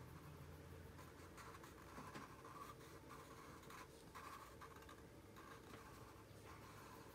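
Felt-tip marker drawing slowly on paper: faint, scratchy strokes, several short ones with brief pauses between them.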